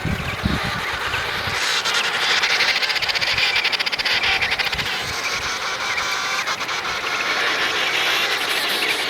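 Emperor penguin colony: a dense, continuous din of many birds calling over one another, growing louder about two seconds in, with high-pitched calls standing out above it.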